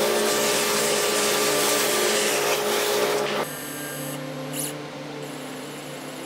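Shop-vacuum hose running over a CNC-carved cutting board, sucking up wood chips with a steady rushing noise and hum. It cuts off sharply about three and a half seconds in, leaving a quieter steady hum with a faint high whine.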